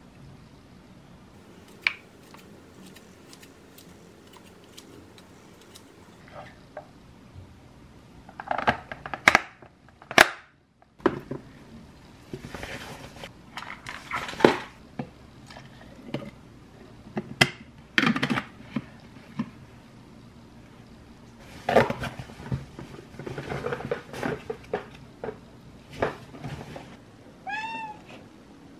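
Kitchen handling noises of a plastic food container and a cloth bag: scattered knocks, clicks and rustles. Near the end, a domestic cat gives one short meow.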